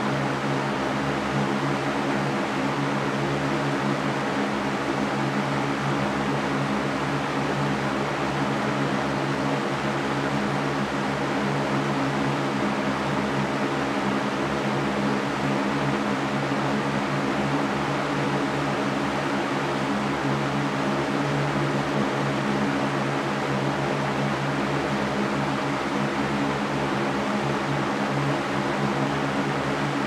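Mastercraft floor fan running steadily: an even rush of air with a constant low hum beneath it.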